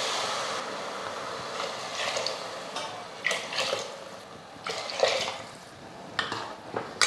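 Water poured into a pressure cooker of sautéed vegetables and masala, then a metal ladle stirring the liquid, with short scrapes and knocks against the pot.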